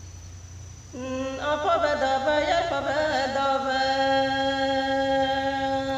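A woman singing a traditional Galo song unaccompanied, in a chant-like style. About a second in she starts a phrase that wavers up and down in pitch, then settles into one long held note.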